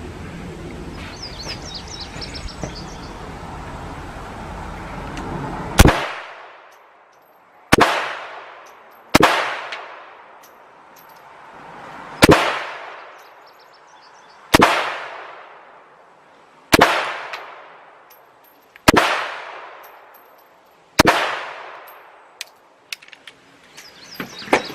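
Eight pistol shots fired one at a time, about two seconds apart, each followed by a long echoing decay. The first shot comes about six seconds in, after a stretch of steady background noise.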